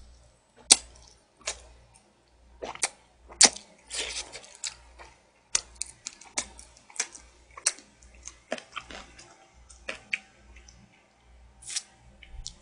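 Close-miked chewing of braised chicken: irregular wet smacks and clicks of the mouth, a few every second, with no steady rhythm.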